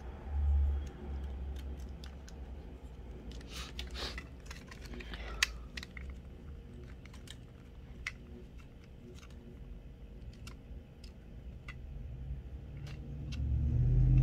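Small plastic parts of a DJI Mini 2 drone and small tools being handled: scattered light clicks and scratches, busiest a few seconds in. A low thump comes about half a second in, and a low rumble builds near the end.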